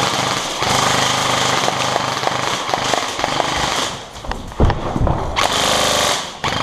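Airsoft electric rifles firing full-auto: a rapid, even rattle for about three seconds, two low thumps, then a second burst of about a second near the end.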